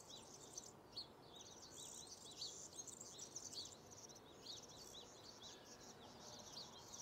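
Many small birds chirping, a dense run of short high chirps, over a faint steady city hum.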